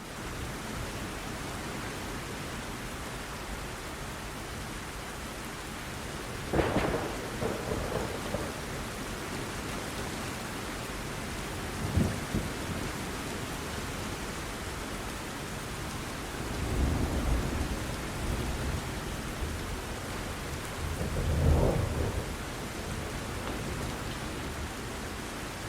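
Steady heavy rain falling during a thunderstorm, with thunder rumbling four times: about a quarter of the way in, once sharply near the middle, and twice more in the last third.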